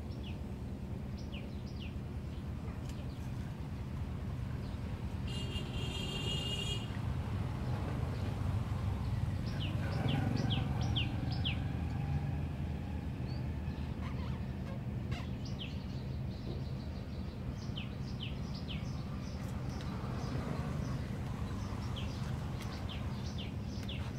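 Small birds chirping in many short, high, falling notes, with one longer ringing call about five seconds in, over a steady low rumble.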